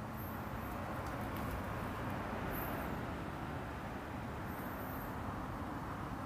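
Steady outdoor hum of distant traffic, with three short, very high faint chirps over it.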